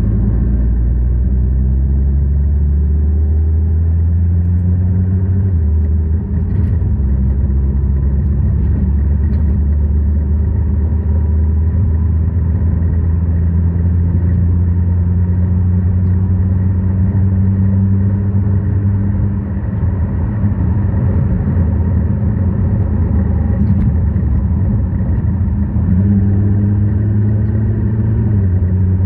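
2011 Nissan GT-R R35 running with a steady low rumble, its engine pitch shifting a few times, and a few faint clicks now and then: the front passenger-side clunk/click noise under investigation.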